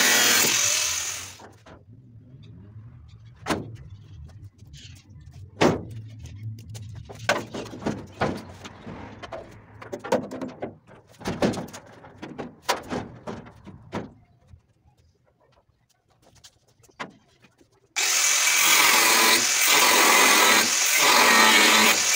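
Angle grinder cutting through a truck's sheet-metal front, stopping about a second in. Then scattered metal clanks and knocks as the cut panel is worked free and lifted, a few seconds of near quiet, and the grinder cutting again from about 18 s on.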